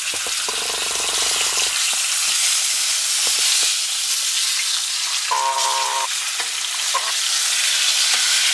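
Hot oil sizzling steadily as whole trout fry in a pan, with light clicks of a fork against the pan as the fish are turned.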